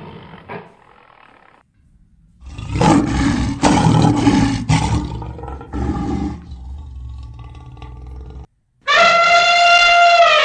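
Sound effects of a lion roaring, a series of roars starting about two and a half seconds in and lasting several seconds, then an elephant trumpeting near the end: one long call that falls in pitch as it dies away.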